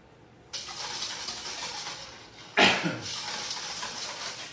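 Pickle brine of vinegar, salt, sugar and turmeric being mixed in a bowl: a steady swishing that starts about half a second in, with one short, louder sound about two and a half seconds in.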